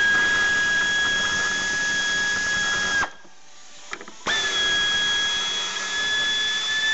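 Power drill-driver backing out the tail lamp's mounting bolts: a steady, high motor whine in two runs of about three seconds each, with a pause of about a second between them.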